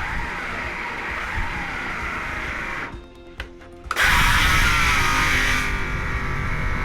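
A power saw cutting a block of lignum vitae (guaiacum), its whine wavering in pitch as the blade works through the dense wood. It stops for about a second around the middle, with a few clicks, then starts again louder.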